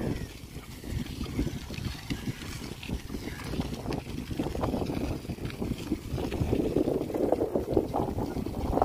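Wind buffeting the microphone over the rumble of a Firefox Rapid 21 bicycle's tyres rolling fast on a rough dirt track. The rumble grows louder about seven seconds in.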